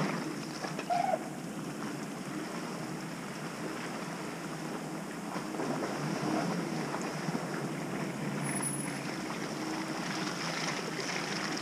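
A distant Jeep Cherokee Trailhawk creeping along a muddy woodland trail, its engine a faint steady drone under wind noise, growing a little louder toward the end. A brief, higher-pitched sound comes about a second in.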